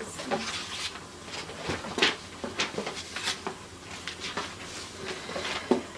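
Irregular rustling and crinkling of paper and a plastic treat bag being handled, a scatter of short crackles.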